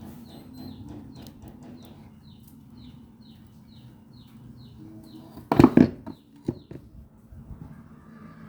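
A small bird chirping over and over, short falling chirps at about two to three a second. A loud sudden clatter about five and a half seconds in stands out above them.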